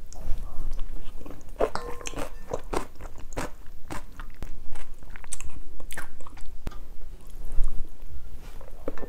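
Close-up mouth sounds of a person eating rice porridge with kimchi: wet chewing with irregular crunchy clicks and smacks. A few light clinks of utensils against the bowl about two seconds in.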